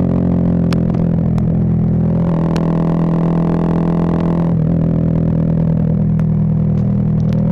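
Single-cylinder engine of a Bajaj Pulsar 220F motorcycle, fitted with a Race Concepts full-system exhaust, running under way at a steady engine note with slight throttle changes, and a few sharp clicks over it.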